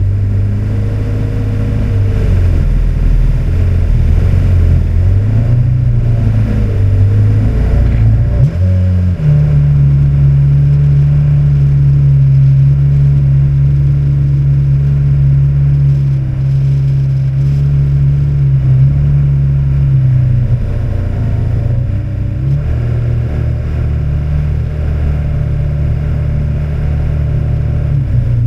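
Small outboard motor driving a skiff along at speed, running steadily. About eight seconds in the engine note rises to a higher, steady speed, and around twenty seconds in it drops back somewhat.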